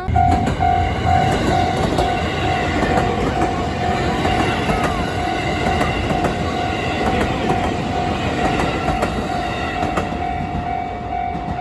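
A train running past at a railway level crossing, its wheels clattering on the rails, while the crossing's electronic warning bell rings on one repeated tone throughout.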